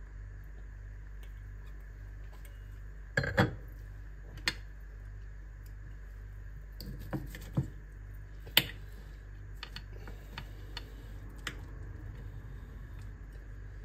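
Sharp clinks and taps of glassware and a knife and fork on a glass plate as steak is cut, the loudest cluster about three seconds in and scattered lighter taps after, over a steady low hum.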